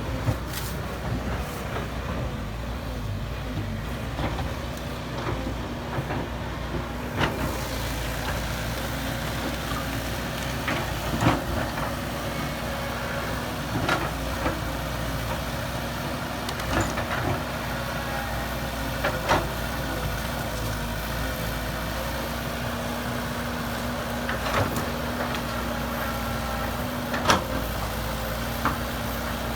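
Heavy diesel earthmoving machinery running steadily, with scattered sharp clanks and knocks, the loudest about 11 and 27 seconds in.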